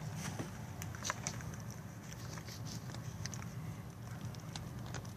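Scattered small clicks and light taps of parts being handled while a computer case is taken apart, over a steady low hum.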